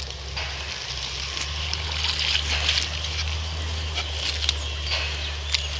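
Water sloshing and floating plants rustling as a long-handled dip net is worked through a weedy pond edge, with small irregular clicks and splashes over a steady low hum.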